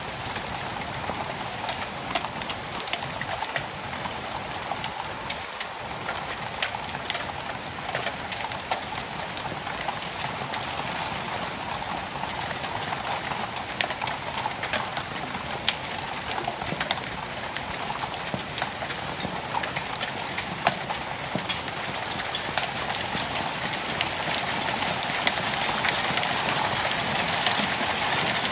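Heavy rain pouring down steadily, a dense hiss studded with many sharp individual drop hits close by. It grows a little louder near the end.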